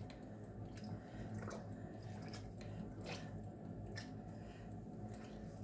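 Wet fabric squelching as it is pressed down under a pot of turmeric dye, with scattered small clicks, over a steady low hum.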